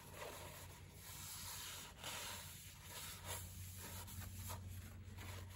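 Paper towel rubbed back and forth against the cylinder bore of a Predator 420 engine, a faint, uneven scrubbing of repeated wiping strokes.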